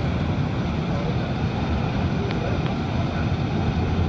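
R46 subway train running through a tunnel: a steady low rumble of wheels on the track, with two faint clicks a little past halfway.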